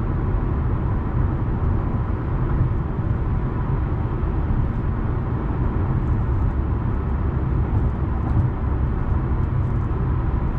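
Steady road noise inside a Honda Accord's cabin at highway speed: a low, even rumble of tyres and engine.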